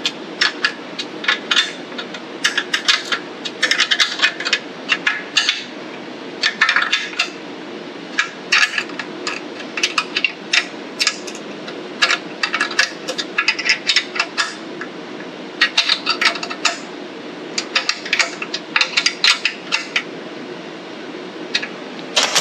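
A combination wrench working bolts on a small engine's aluminium top plate: quick runs of metallic clicks in clusters about a second apart, over a steady background hum.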